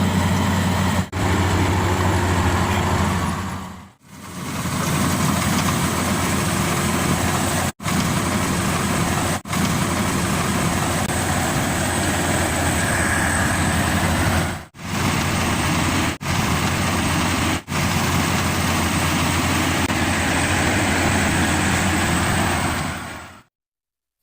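Maxxi Bimo Evo Xtreme combine harvester running steadily while harvesting rice, a loud machine drone with a strong low hum. It cuts out abruptly for a moment several times and fades away near the end.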